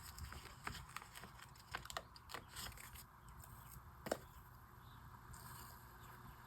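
Faint, scattered clicks and light paper handling as a sticker is peeled from its sheet and pressed onto a journal page, with the sharpest tick about four seconds in.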